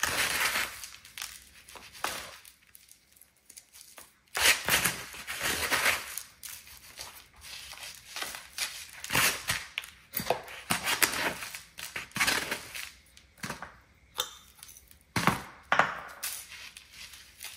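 Hands working a seasoning rub into a raw cut of beef: irregular rustling, crinkling and patting handling noises that come in short bursts with quiet gaps between.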